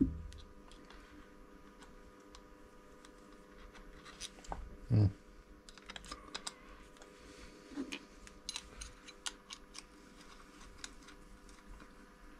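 Small clicks and taps as parts of a lathe chuck are handled and fitted by hand, with a dull knock at the start and a louder one about five seconds in.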